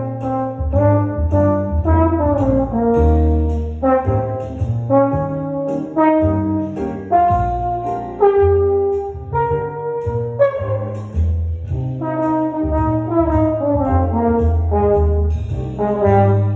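Slide trombone playing a melodic solo line: a run of separate notes, some short and some held, moving up and down in pitch.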